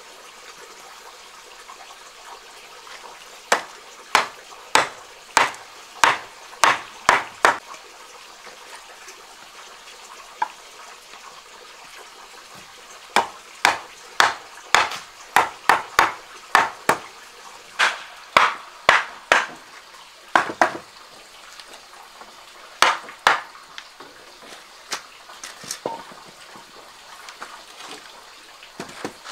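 Runs of sharp, evenly spaced knocks, about one and a half a second, with pauses of a few seconds between the runs.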